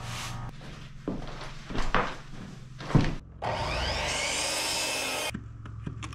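Wooden boards knock three times. Then a power saw spins up and runs for about two seconds, rising in pitch, and cuts off suddenly.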